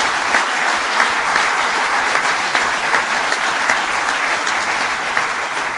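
An audience applauding: many hands clapping steadily.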